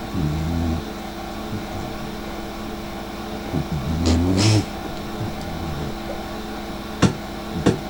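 Dachshund snoring in its sleep: two snores about four seconds apart, each a low buzzing breath that rises in pitch, the second with a hiss. Two sharp clicks near the end.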